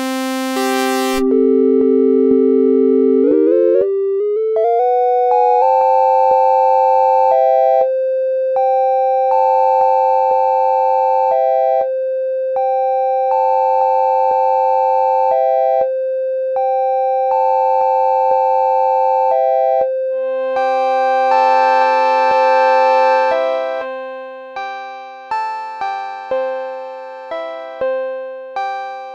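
Massive X software synthesizer playing a looping two-note figure over a held note, in plain, steady tones. About three seconds in, the whole sound steps upward in pitch. Near the end the notes turn into quick decaying strikes as the patch is shaped into a bell.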